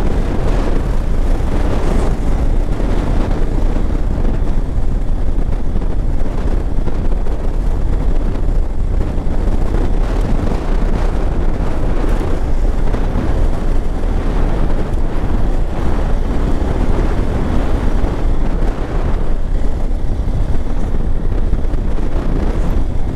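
Motorcycle riding: wind rushing on the microphone over the steady running of a Hero Xpulse 200 4V's single-cylinder engine, with no let-up.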